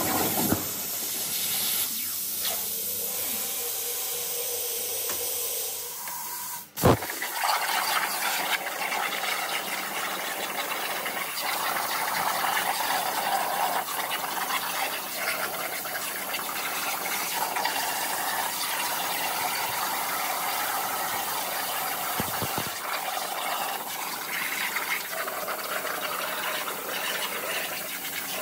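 Swift-Cut CNC plasma cutter's torch cutting quarter-inch steel plate: a steady hiss from the arc. About seven seconds in the sound drops briefly and there is one sharp crack before the hiss carries on.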